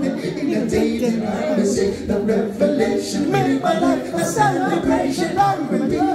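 Live a cappella singing by a man into a microphone, with several vocal lines sounding at once as layered harmonies built up on a loop pedal.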